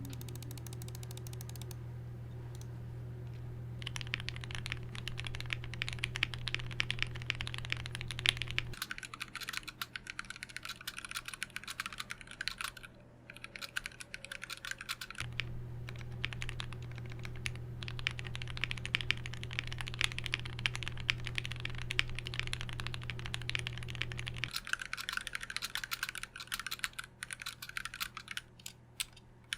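Typing on a modded Tofu65 mechanical keyboard: rapid clacking keystrokes on lubed and filmed Gateron Black Ink switches in a brass plate, with GMK Dracula keycaps and PE foam and case foam mods. The build is tuned for a poppy sound. The typing picks up about four seconds in and pauses briefly around the middle.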